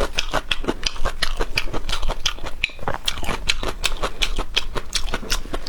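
Close-up wet chewing and mouth clicks of someone eating a boiled goose egg: a quick, irregular run of small clicks, several a second.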